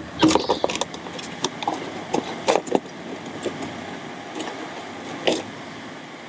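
Metal hand tools and car parts clinking and knocking. There is a quick run of sharp knocks in the first three seconds, scattered light ticks after that, and one louder clank about a second before the end.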